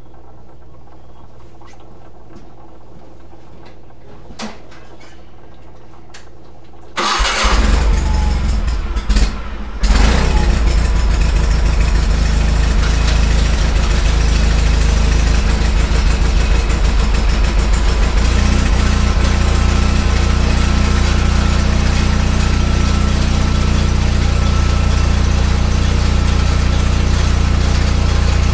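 A garden tractor's engine is cranked by its starter, sputtering for about three seconds from around seven seconds in. It catches at about ten seconds and settles into steady running.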